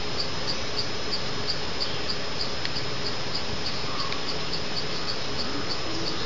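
An insect chirping steadily in a fast, even rhythm of about five chirps a second, over a steady hiss.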